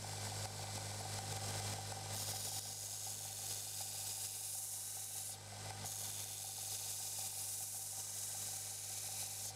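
Belt grinder running with a steady motor hum. From about two seconds in, a steel knife blade made from a reciprocating saw blade is pressed against the moving abrasive belt, adding a grinding hiss that breaks off briefly near the middle when the blade is lifted, then resumes.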